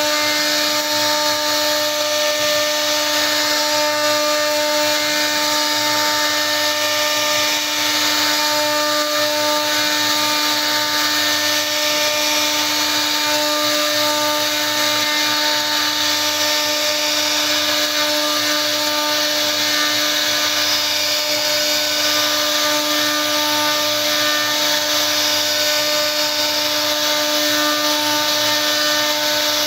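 CNC router spindle running at speed while its bit carves a relief pattern into a wooden panel: a steady whine over the noise of the cut.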